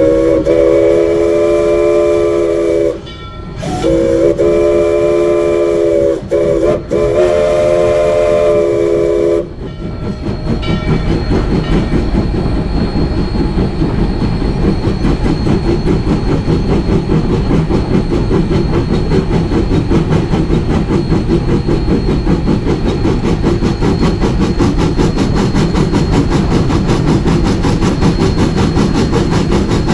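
Steam whistle of Rio Grande Southern No. 20, an 1899 4-6-0 ten-wheeler, blowing a chord of several tones in four blasts: long, long, short, long, the pattern of the grade-crossing signal. The locomotive then runs on with a steady, quick, even beat.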